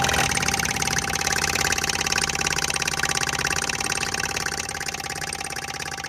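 Homemade motor-driven air pump running with a fast, even rattling pulse, slowly fading out.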